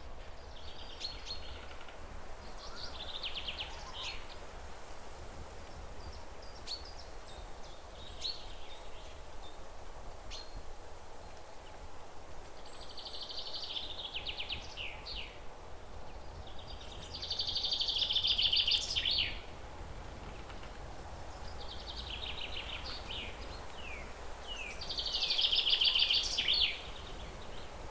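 Small songbird singing in short phrases of rapid high trills and chirps, repeating every few seconds, with the two loudest phrases in the second half. A steady low outdoor rumble runs underneath.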